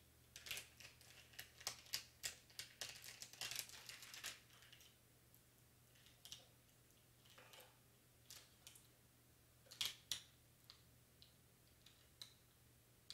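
Faint crinkling and light clicks of small vinyl decal pieces on clear transfer tape being handled, busy for the first four seconds or so, then scattered ticks.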